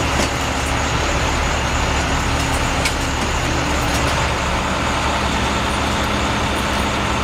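Utility bucket truck's engine running steadily, with a faint click or two from the work on the pole.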